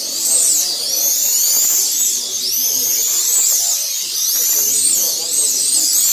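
Several 1/32-scale slot cars racing, their small electric motors whining loudly and overlapping, each pitch rising as a car speeds up and dropping as it brakes for the corners.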